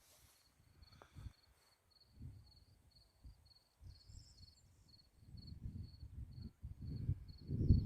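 A cricket chirping: a short, high chirp repeated about three times a second. Under it runs a low rumbling noise that grows louder in the second half and is loudest near the end.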